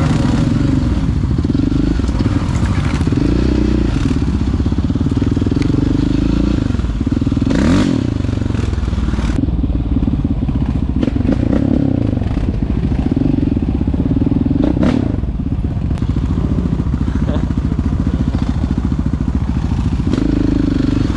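Quad (ATV) engine running loud while riding, the revs rising and falling with the throttle, with a couple of sharp knocks about eight and fifteen seconds in.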